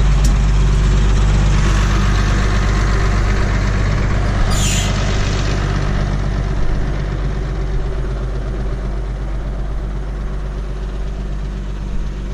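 Farm tractor's diesel engine running steadily at a constant speed, with no revving.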